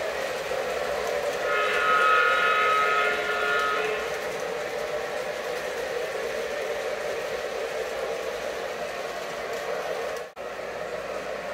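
O-gauge model trains running on three-rail metal track, a steady rumble of wheels and motors, with one long horn blast from a locomotive's onboard sound system from about one and a half to four seconds in. The sound cuts out for an instant near the end.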